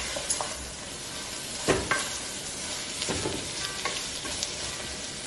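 Sliced onions sizzling as they fry in a pressure cooker, being browned, while a wooden spatula stirs them and knocks and scrapes against the pot a few times, most sharply about two seconds in.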